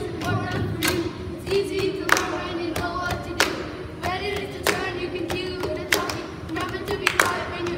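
Children rapping in unison over a steady body-percussion beat of hand claps and taps on a wooden tabletop, about one and a half beats a second.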